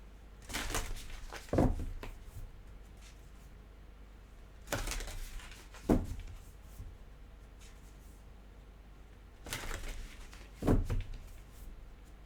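Tarot cards being handled on a table: three times, a brief rustle of cards followed by a sharp tap as a card is set down, about every four to five seconds.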